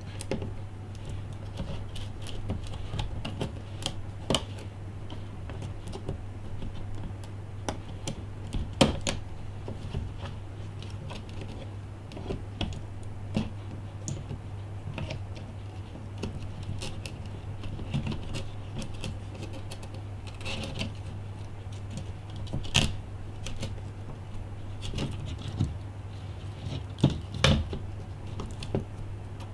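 Small repair tools clicking and scraping against an iPhone 5 while prying under its screen assembly: irregular light clicks and ticks, a few sharper ones, over a steady low hum.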